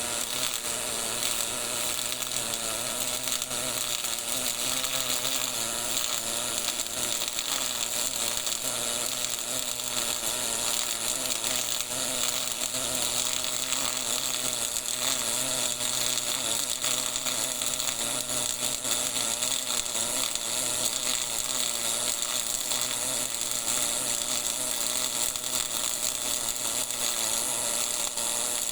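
MIG (gas metal arc) welding arc burning continuously, a steady crackling buzz that holds at an even level throughout.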